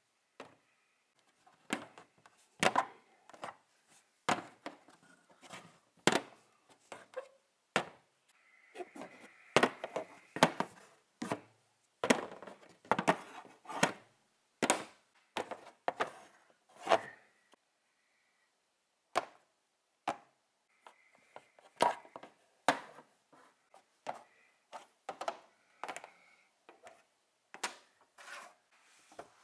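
Hard plastic toy figures of a triceratops and a Smilodon knocking against each other and clacking on a hard tabletop board: irregular sharp clacks, one or two a second, with brief scraping now and then.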